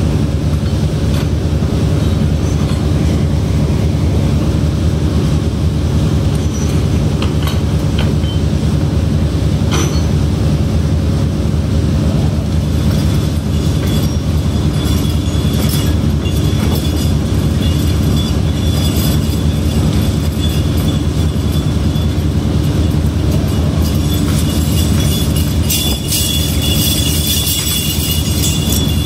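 Steady low drone of heavy shipboard machinery with scattered metallic clinks and clatter. A denser high-pitched rattle of metal on metal picks up about halfway through and again near the end.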